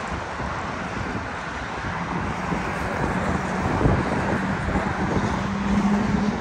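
City street traffic: a steady rush of passing cars, with one vehicle's engine hum coming in about two seconds in and growing louder and slightly higher as it approaches.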